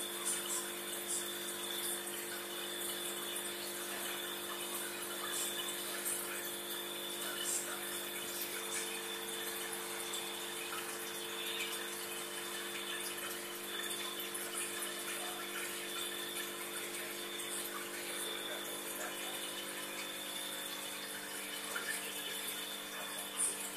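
Aquarium pump running with a steady hum over a constant wash of bubbling, splashing water, with faint little ticks of bubbles breaking.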